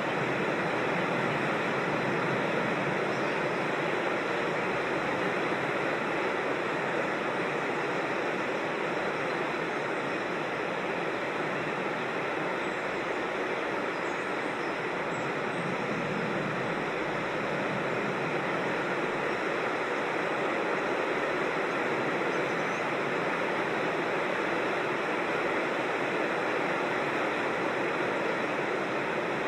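Creek water rushing over rocks at a small waterfall: a steady, even rushing hiss that does not change.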